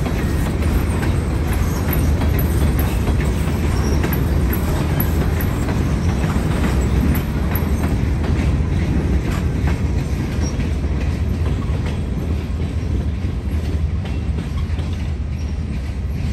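Freight train cars rolling past close by: a steady low rumble of wheels on rail with rapid, irregular clicks over the joints, easing off a little near the end.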